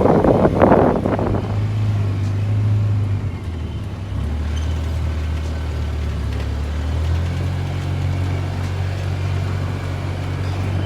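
A motor vehicle's engine running with a steady low hum; its pitch drops about four seconds in and rises again about three seconds later.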